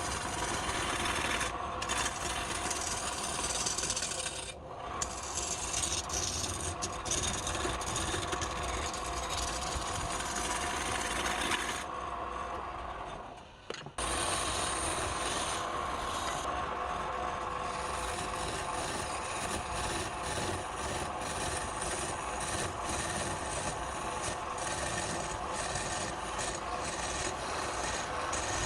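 A wood lathe running, with a tool rasping against the spinning wood over a steady motor hum. About halfway through the rasping falls away briefly, then resumes.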